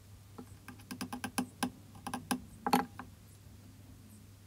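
A quick, irregular run of light clicks and taps from small plastic and metal parts being handled and pressed on a wooden block, as the tail's metal pin is fitted back through the plastic piece, about a dozen in a couple of seconds, the loudest near three seconds in.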